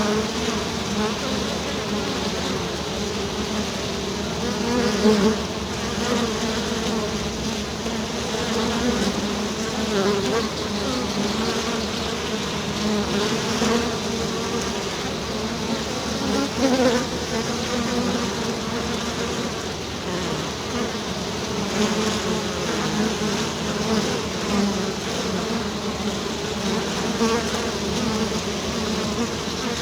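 Many honeybees buzzing together as a swarm, a dense continuous hum with a wavering pitch that swells briefly now and then as bees pass close.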